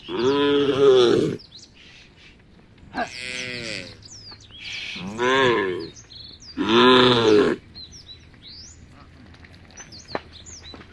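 Cows mooing: four calls of about a second each in the first eight seconds, each rising and then falling in pitch; the first and last are the loudest. Small birds chirp in the background.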